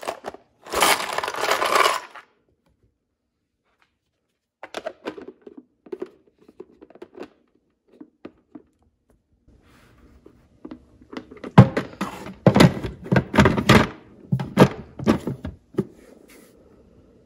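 A container's worth of tiny plastic Mini Brands toy groceries poured into a clear plastic bin, a loud clattering rush about a second in. Then scattered light plastic clicks as a lid is pressed on, and near the end a run of loud knocks and thuds as plastic bins are shifted in a toy kitchen cabinet.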